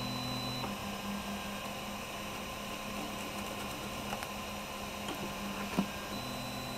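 3D printer idling with a steady fan hum. A higher whine drops out about a second in and comes back near the end. A few faint clicks come from paper being slid under the nozzle.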